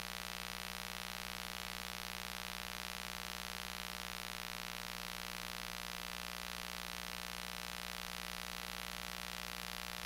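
Steady hiss with a constant electrical hum from the recording equipment, unchanging throughout; no voice is picked up.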